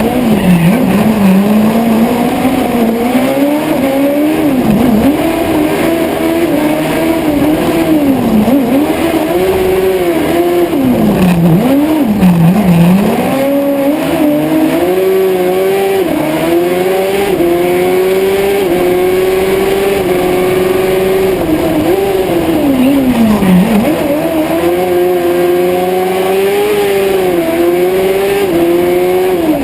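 Honda Hornet 600 inline-four motorcycle engine in an Ape Proto race three-wheeler, heard onboard under maximum attack. It revs hard and holds high revs, and its pitch falls sharply and climbs back about six times as the revs drop and pick up again.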